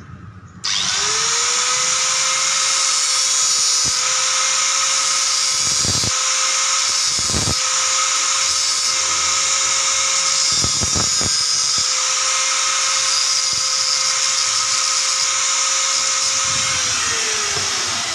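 Handheld angle grinder switched on about a second in, spinning up and running with a steady whine while its disc cuts into a short stainless steel exhaust pipe, with the bright hiss of metal being cut; it winds down with a falling pitch near the end.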